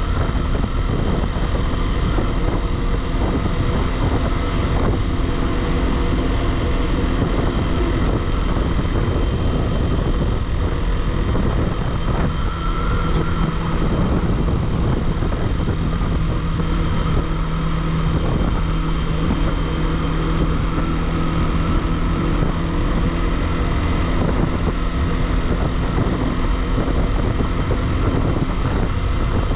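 Motorcycle engine running at a steady cruising pace under a heavy rush of wind on the microphone, with the engine's pitch shifting slightly about halfway through.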